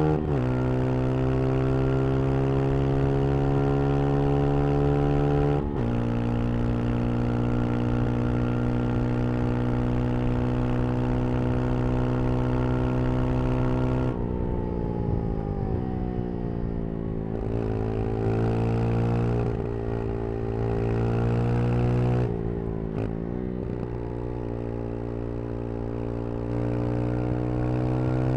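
Brixton Crossfire 125 XS single-cylinder engine pulling steadily under way, with quick drops in pitch at the very start and about six seconds in, like gear changes. Around halfway the revs fall away, then come and go through several short throttle dips before climbing again near the end.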